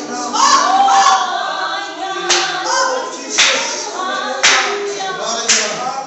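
A group of voices singing a hymn without instruments, with sharp hand claps on the beat about once a second from a little after two seconds in.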